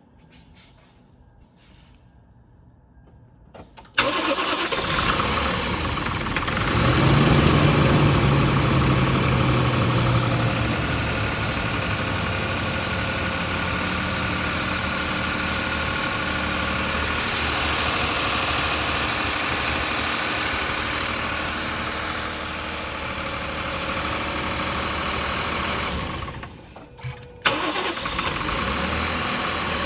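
Toyota 1JZ-FSE 2.5-litre inline-six starting about four seconds in, running at raised revs for a few seconds, then settling into a steady idle. The idle carries the extraneous engine noise the owner is asking about. The sound briefly drops away near the end and resumes.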